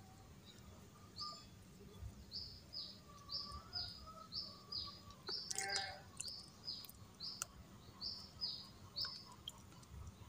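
A small bird chirping faintly, short high chirps in pairs, the second one falling, repeating about once a second. A brief louder sound comes about halfway through.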